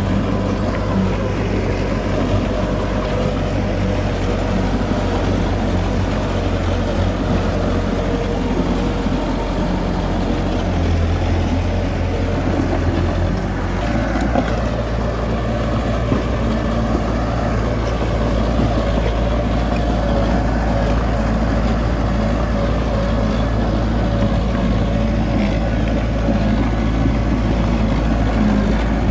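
Heavy diesel engine of earthmoving machinery running under load with a steady low drone; its note shifts about eleven seconds in and again a few seconds later.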